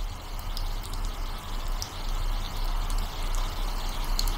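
Rain sound effect: steady rainfall with scattered drips and a steady low rumble beneath.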